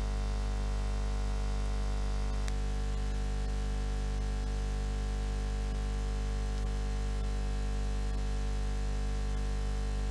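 Steady electronic drone: an unchanging buzz of many stacked tones, heaviest in the bass, over a hiss, with no beat or melody. One faint click about two and a half seconds in.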